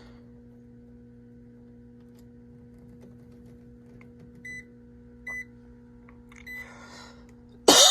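Three short, high beeps from a digital multimeter over a steady low electrical hum, as 24-volt control power is being checked. A cough comes right at the end.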